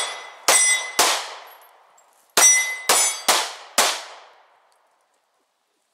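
Six pistol shots from a Smith & Wesson M&P40 Compact (.40 S&W): two about half a second apart, then after a pause a quicker string of four, each echoing away through the trees.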